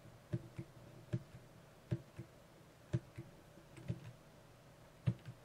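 Computer keyboard arrow keys being tapped: about six taps, roughly one a second, each heard as a light double click of the key going down and coming back up.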